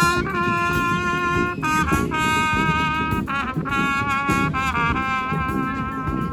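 Live brass band playing: horns sound a run of held chords, each about a second long, broken by short quick notes, with percussion beating underneath.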